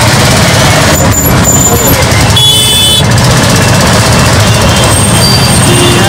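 Dense street traffic heard from an open rickshaw: a loud, steady din of truck and other vehicle engines. A brief high-pitched tone sounds about two and a half seconds in, and a steady low tone begins just before the end.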